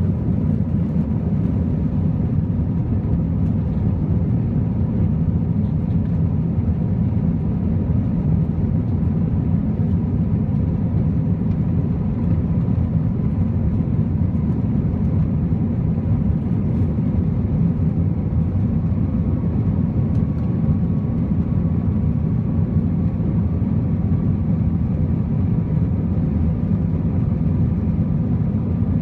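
Cabin noise inside an Airbus A321-231 climbing out after takeoff: a loud, steady low rumble of airflow and its IAE V2500 turbofan engines, with faint steady hums above it.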